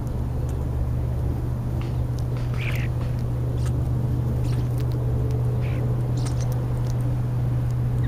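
A steady low hum throughout, with a few short European starling calls and scattered light clicks over it.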